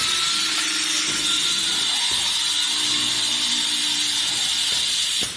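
Automatic glass lid drilling machine drilling two holes in a glass lid at once: a steady, high-pitched hiss with a low motor hum under it, cutting off suddenly near the end.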